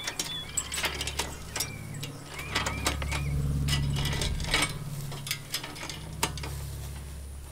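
Chain walkers on a fence stretcher bar clicking and clinking along their chains as a fixed knot wire fence is pulled tight: irregular sharp metal clicks. A low rumble swells and fades in the middle.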